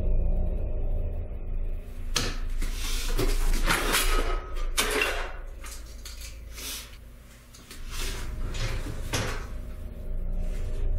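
A wooden bathroom vanity drawer opened and rummaged through, its contents rustling and clattering in a quick run of strokes starting about two seconds in, with a few more later on. A low steady hum underlies the first couple of seconds.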